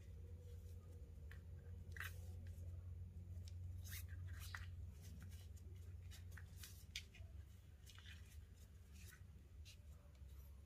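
Faint, scattered rustles and small clicks of 550 paracord sliding through fingers and being pulled as a snake knot is tied, over a steady low hum.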